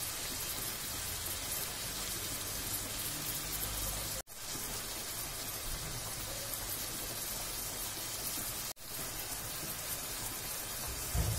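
Ground beef with grated carrot and onion sizzling steadily in a frying pan, a continuous hiss that cuts out briefly twice, about four and about nine seconds in.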